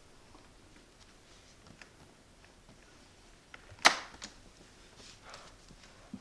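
A single sharp click about four seconds in, followed by a fainter click; otherwise faint room tone.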